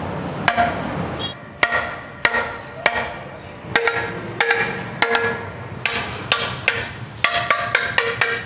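Iron roof-rail tube struck again and again against a concrete pillar: well over a dozen sharp knocks, each with a short metallic ring, coming faster near the end. The blows are putting a slight curve into the rod so the rail's legs will sit flat on the car roof.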